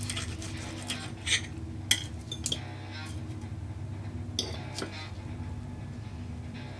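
Knife and fork clinking against a plate several times while chicken is cut and eaten, over a steady low hum.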